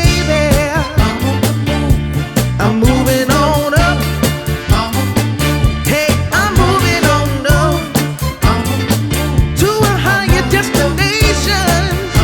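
Background music: an upbeat song with singing over a steady beat and bass line.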